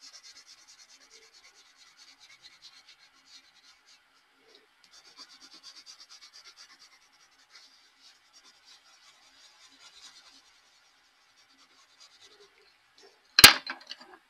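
Colored pencil scratching across paper in quick shading strokes, in a few stretches with pauses between. Near the end there is a sharp clack as a pencil is set down among the others, followed by a few lighter clicks.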